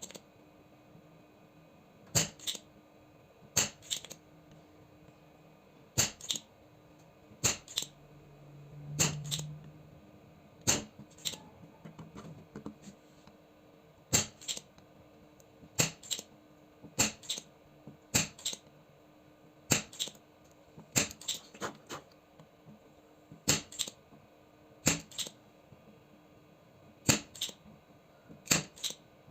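Sharp clicks, often in close pairs, repeating every second or two over a faint steady hum, with a short low buzz about nine seconds in.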